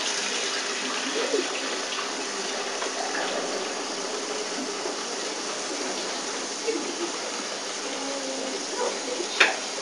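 Water running steadily into a bath, with one short sharp knock about nine seconds in.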